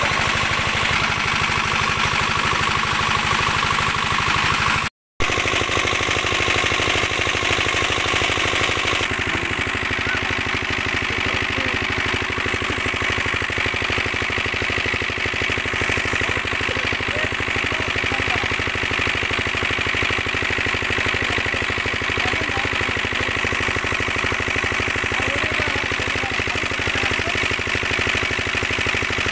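Diesel engine of a shallow-machine irrigation pump running steadily, with water gushing from the outlet pipe into a concrete tank. The sound drops out for an instant about five seconds in.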